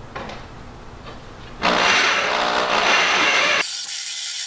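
Electric drill driving a hole saw through steel plate. A loud grinding whir starts about a second and a half in. About two seconds later the low part of the sound drops away, leaving a thinner, higher-pitched cutting sound.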